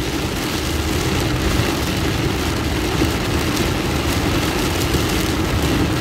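Heavy rain beating steadily on a car's roof and windshield, mixed with engine and wet-tyre road noise, heard from inside the moving car.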